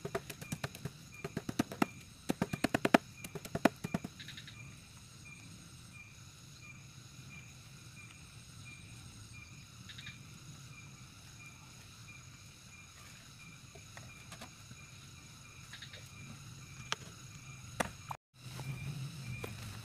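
A rapid run of clicks and taps for the first few seconds as hands work at the end of a PVC-pipe eel trap, over a steady, pulsing chorus of small calling creatures that carries on alone afterwards.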